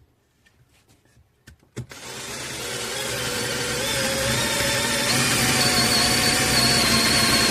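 KUZUPRO 21V cordless drill driver: a few light clicks, then about two seconds in the motor starts and speeds up over a couple of seconds to a steady high whine.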